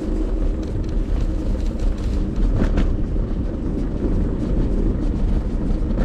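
Electric kick scooter rolling over sidewalk paving: a steady low rumble and rattle, with a couple of short clicks about two and a half seconds in.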